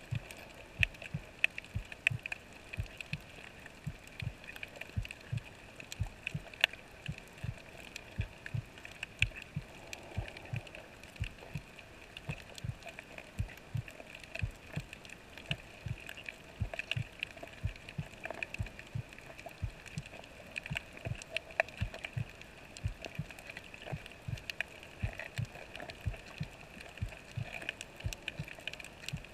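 Underwater sound picked up by a snorkeler's camera below the surface. Irregular low, muffled thumps, two or three a second, over a steady hiss with faint scattered clicks.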